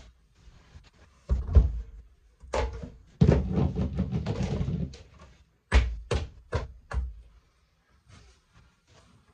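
Thumps and knocks as an Oreck Orbiter floor machine, switched off, is tipped onto its back and its pad driver and brush are handled, with a longer scraping rustle in the middle and then four sharp knocks in quick succession.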